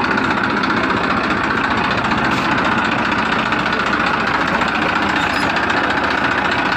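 A small engine running steadily with a fast, even chugging that does not change in pace or loudness.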